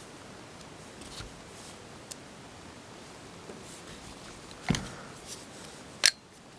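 A few light clicks, then two sharp plastic clacks near the end, from a screwdriver working on the toy's small plastic electronic unit.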